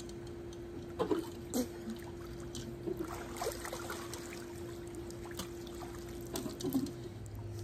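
Pool water splashing and trickling as a swimmer moves to the edge and climbs out by the stair rail, with short splashes about a second in, around three seconds, and near the end. A steady hum runs underneath.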